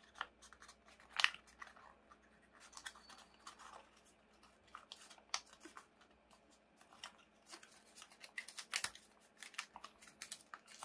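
Origami paper crinkling and crackling in the hands as a pleated model is collapsed along its creases: scattered sharp crackles and ticks, loudest a little over a second in and again around nine seconds.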